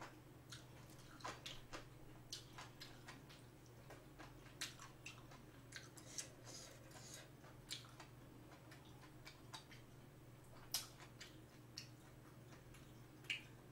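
Faint close-miked chewing of spicy braised clams and bean sprouts: soft wet mouth sounds and scattered small clicks, with a couple of sharper clicks about eleven seconds in and near the end.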